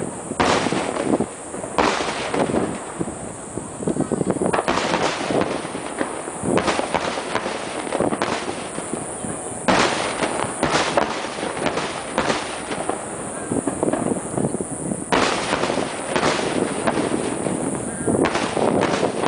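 Aerial firework shells bursting one after another at uneven intervals, with a short lull about two-thirds of the way through.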